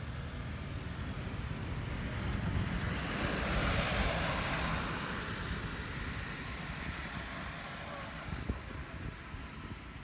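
Road traffic: a vehicle passing on a nearby road, its noise swelling to its loudest about four seconds in and then fading, over a steady low rumble of wind on the microphone.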